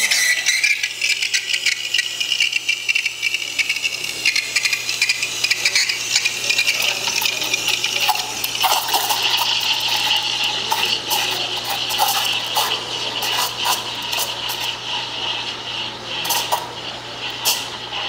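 Steam wand of a 2004 Rancilio Classe 8 espresso machine frothing milk in a pitcher: a steady hiss that starts suddenly, with rattling and clicking, and a faint tone joining about eight or nine seconds in.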